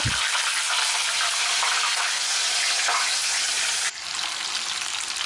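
Wet raw banana slices hitting hot oil in a wok and deep-frying with a loud, dense sizzle, sharpened by water left on the undried slices. It settles slightly quieter about four seconds in.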